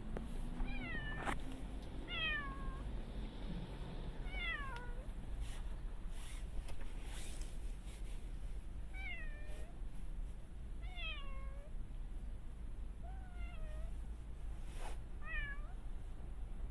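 A stray cat meowing repeatedly: about seven short meows that fall in pitch, spaced a couple of seconds apart.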